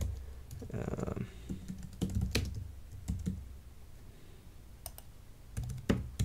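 Typing on a computer keyboard: a run of irregular keystroke clicks with short pauses between words.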